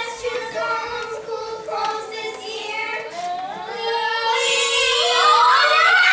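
A girl singing a solo in a young voice, her line rising in pitch and growing louder near the end.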